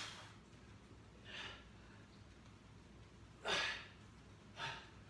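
A man breathing hard with effort: short, forceful exhales, four of them, the loudest about three and a half seconds in.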